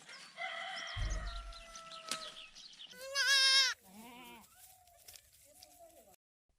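Goat bleating: one loud, wavering bleat about three seconds in, then a lower, shorter call, with faint high calls and a low thud about a second in.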